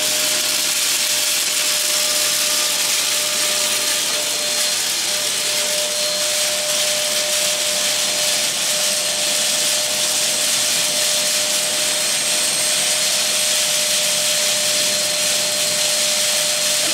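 Dirt Devil Power Reach multi-cyclonic bagless canister vacuum running steadily as its hose wand sucks along the carpet: a rush of air with a steady motor whine.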